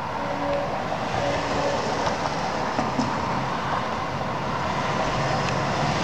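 Street traffic with a car driving past close by near the end. Faint held tones, heard in broken stretches in the first second or two, which the recorder takes for distant horns.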